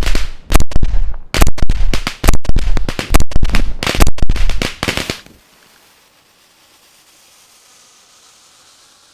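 Aerial fireworks going off in a rapid barrage of loud bangs and crackles, many bursts overlapping, ending abruptly about five seconds in and leaving only a faint hiss.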